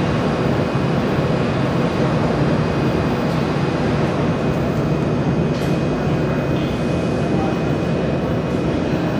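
Desktop YAG laser welding machine running at idle, its water-cooling system giving a steady, even whir with a faint high whine over it.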